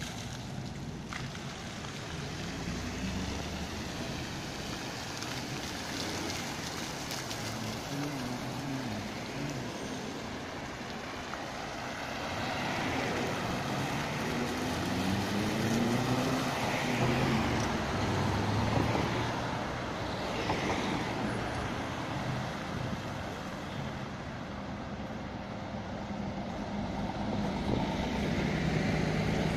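City road traffic: cars and trucks driving past in a steady stream, their engine notes rising and falling as they pass, louder about halfway through and again near the end.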